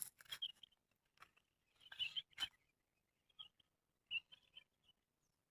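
Near silence broken by several faint, short, high-pitched animal chirps and a few soft clicks.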